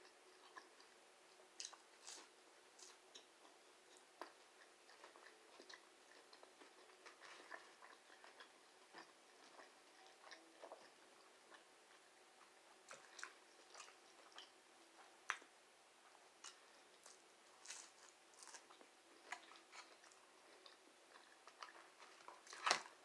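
Faint, close-miked chewing of chicken nuggets, with small irregular wet mouth clicks and smacks. One sharper click near the end.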